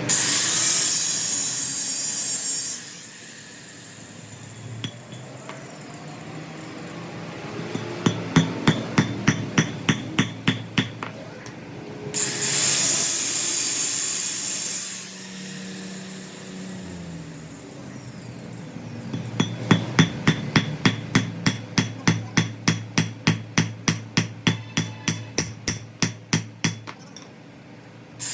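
A hammer striking a steel part in two runs of rapid, even blows, about four a second. Short bursts of loud hissing come at the start and again in the middle.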